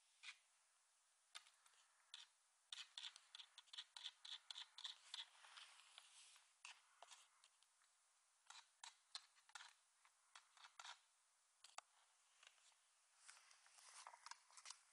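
Faint, irregular light clicks and scratching from a small dog scrabbling after a June bug, in quick runs with short pauses between.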